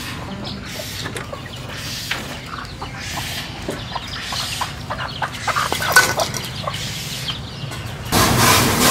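Chickens clucking in short, scattered calls over a steady background hum. A louder rushing noise sets in near the end.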